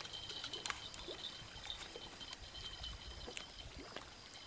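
Quiet lakeshore ambience: a faint, steady high-pitched chirping, with scattered small clicks and taps.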